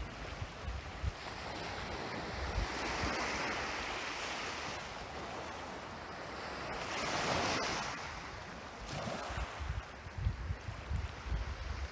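Small, calm-sea waves washing onto a pebble and coral-rubble beach, with one larger wash swelling and fading about seven seconds in. Gusts of wind buffet the microphone near the end.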